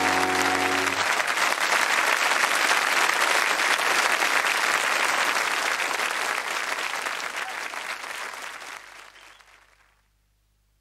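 Studio audience applauding over the last notes of a short musical sting, which stops about a second in; the applause fades away near the end.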